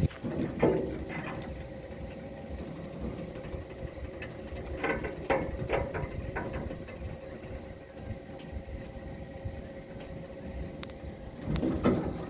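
A steady motor hum over a low rumble, with short, evenly repeated high insect chirps.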